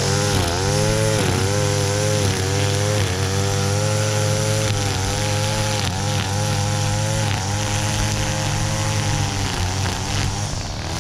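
Two-stroke string trimmer, an Echo SRM-225, running at cutting speed while edging the lawn, its engine pitch dipping and recovering about once a second as the line bites into the grass.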